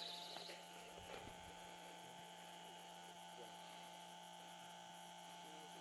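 Near silence: a faint steady electrical hum, with a couple of soft rustles in the first second and a half.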